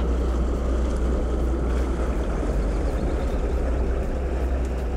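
A boat engine running at low speed with water wash, over a steady deep rumble.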